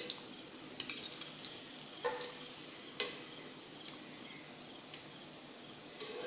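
Hot oil sizzling steadily in a frying pan, with about five sharp clinks of a steel slotted spoon against the pan as fried chicken pops are lifted out.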